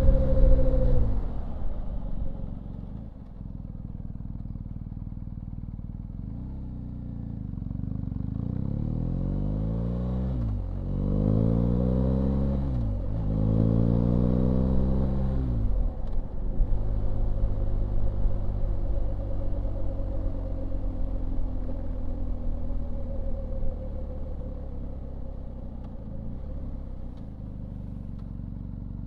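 BMW R1250GS Rallye's 1254 cc boxer-twin engine, heard from the rider's seat. Its revs fall away sharply in the first few seconds as the bike slows, settle into a steady low run, then climb and drop three times as it accelerates up through the gears. It holds a steady speed for a while and eases off near the end.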